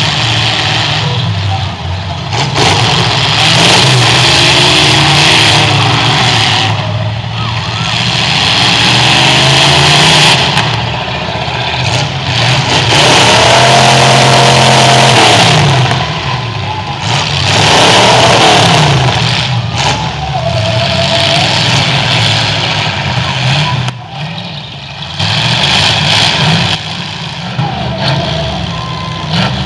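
Several V8 demolition-derby car engines revving hard, the pitch and loudness rising and falling in waves as the cars push against one another.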